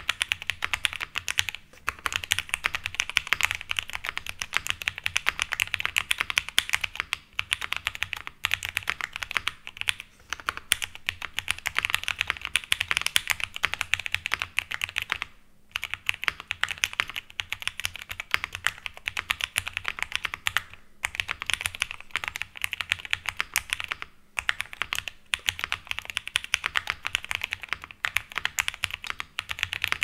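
Steady fast typing on a Gentleman 65 mechanical keyboard with a bocote wood top, polycarbonate bottom, POM plate, White Cow switches and GMK Botanical keycaps: a dense run of key clacks, broken by a few brief pauses.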